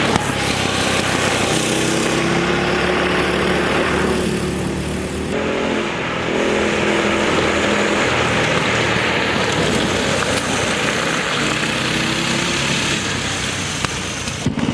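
Predator single-cylinder four-stroke engine on a go-kart running hard on a top-speed run of about 33 mph, its pitch wavering as engine speed shifts, over a steady rush of noise that eases briefly about four seconds in.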